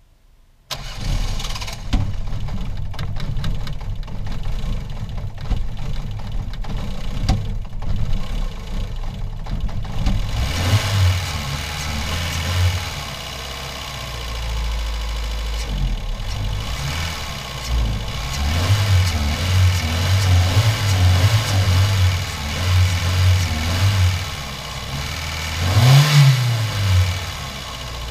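Ford Fiesta 1.3 Endura-E petrol four-cylinder engine starting abruptly under a second in, then running at idle with its speed rising and falling unevenly. About 26 seconds in it revs up once and drops back.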